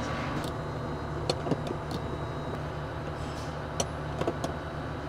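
A few short, light clicks and taps over a steady low background hum.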